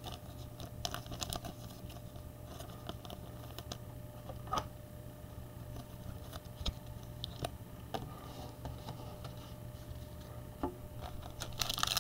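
Trading cards being handled and shuffled by hand: light scratching and soft clicks as the cards slide against each other. Near the end a foil card-pack wrapper crinkles loudly as it is torn open.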